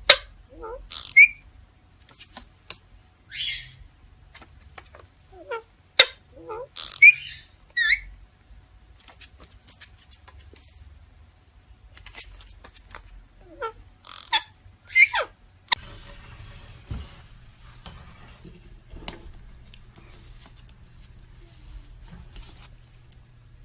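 Parrot chirping and squawking in short calls, some sliding up or down in pitch, with a few sharp clicks among them. About two-thirds of the way through, the calls stop and give way to a faint hiss and a low hum.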